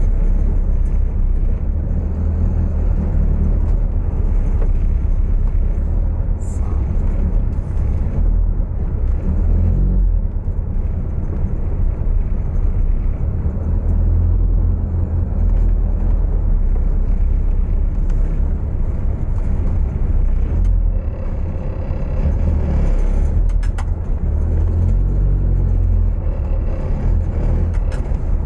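Toyota AE86 running, a steady deep rumble.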